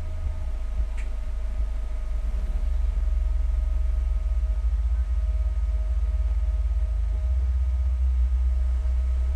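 Subwoofer driven by a Planet Audio AC2500.1M amplifier playing a loud, steady low-bass test tone during a power test at 4 ohms. It gets louder about two and a half seconds in.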